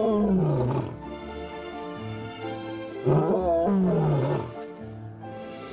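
Juvenile lion roaring: one call trails off about a second in and a second call comes about three seconds in, each falling in pitch, over background music.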